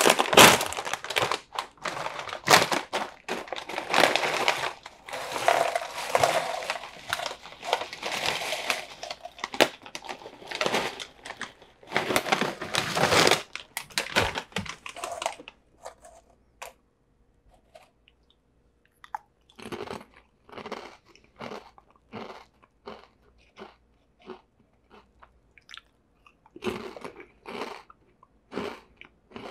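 Orion Sun Chips snack bag crinkling as it is opened and the wavy corn chips are shaken out onto a tray, a dense crackling that stops about halfway through. After it come scattered short crisp crunches with quiet gaps between them.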